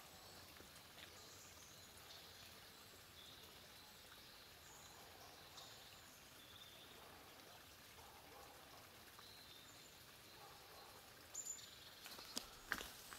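Near silence: faint woodland ambience with a few distant, faint bird chirps, and a few sharp clicks and rustles about a second before the end.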